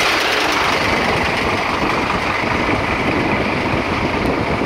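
Fire truck engine running steadily, under a loud, even rushing noise.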